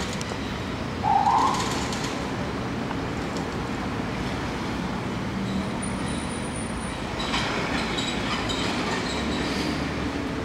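Steady city street traffic from cars and buses passing close by, with a brief higher-pitched sound about a second in and a thin high squeal around the middle.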